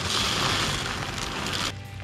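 Shelled corn pouring from a bag into a deer feeder's hopper, a steady rush of kernels that cuts off suddenly near the end. Faint music sits underneath.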